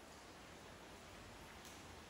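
Near silence: a faint steady hiss of room tone.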